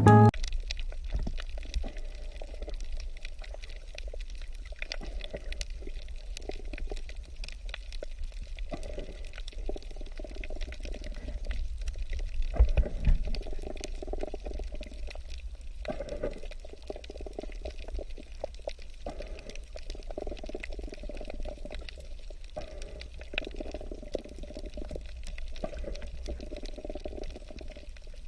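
Water running and splashing in uneven surges over a steady low rumble, a little louder about twelve seconds in.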